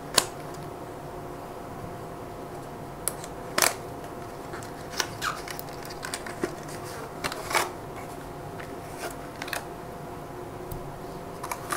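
Cardboard packaging being handled and opened: scattered short clicks and rustles as the box flaps and inner tray are worked and the shrink-wrapped power bank is slid out, the sharpest click just after the start. A steady fan hum runs underneath.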